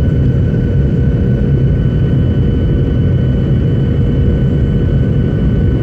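Steady cabin noise inside a Boeing 737 on final approach: a deep, even rush of engine and airflow with a few faint steady whining tones above it.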